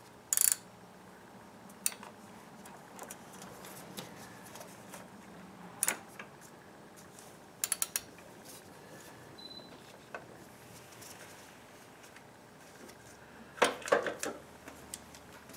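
Scattered metallic clinks and taps of hand tools on engine parts as a bolt is worked loose in a car's engine bay, with a quick run of three clicks near the middle and a cluster of knocks near the end.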